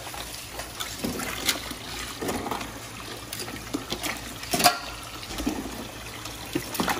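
Water splashing and dripping as live spider crabs are lifted with metal tongs out of a cooler full of water. A few sharp clacks of the tongs come through, the loudest a little past halfway.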